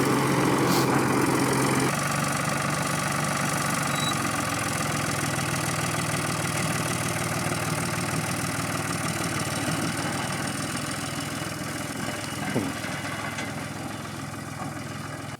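A vehicle engine idling steadily, its tone shifting about two seconds in and slowly growing quieter toward the end.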